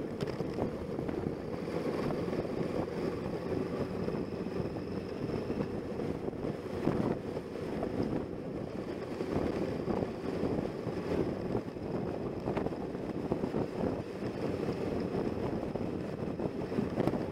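Motorcycle engine running steadily at road speed under heavy wind noise on the bike-mounted microphone.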